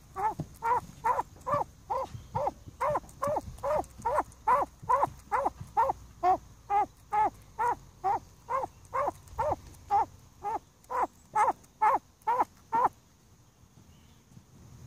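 Male common pheasant feeding from a hand: a fast, regular series of short knocking sounds, about two a second. They stop about two seconds before the end.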